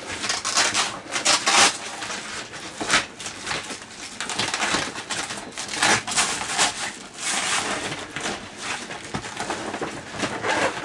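Camper canvas and its Velcro seal strips being handled: irregular rustling and scratchy rasps as the strips are pulled and pressed shut along the canvas.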